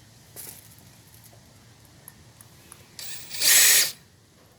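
Power drill running once for about a second, near the end, boring a pilot hole into wood with a finishing nail chucked in place of a drill bit.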